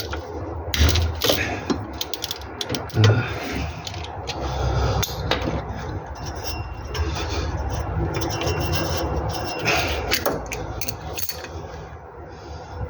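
Mechanic's hand tools working on car parts: a run of metal clicks and knocks with scraping and rubbing between them.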